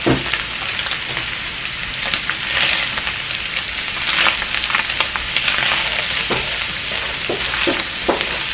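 Ground beef and onion sizzling in a frying pan as taco seasoning is stirred through it with a wooden spoon; a steady hiss with a few short knocks and scrapes of the spoon against the pan, more of them near the end.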